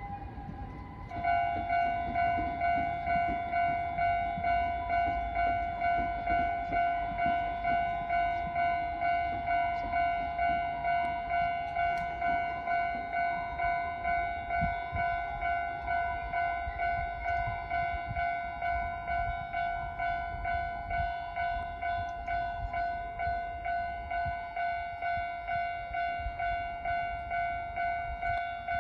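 Japanese level-crossing warning bell ringing in an even electronic clang, about one and a half strikes a second, louder from about a second in, as a Kintetsu train runs past with a low rumble.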